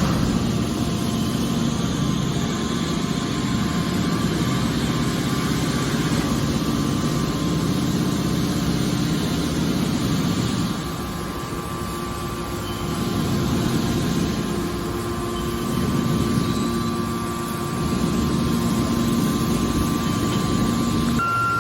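Hydraulic metal baler running: a steady low machine hum with faint steady tones above it, dipping and rising in loudness a few times.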